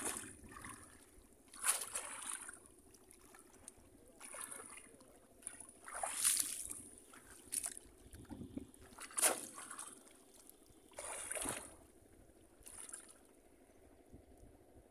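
Water splashing and sloshing as bell-shaped bamboo fish traps are plunged into shallow flood water and people wade through it, in irregular splashes every second or two that thin out near the end.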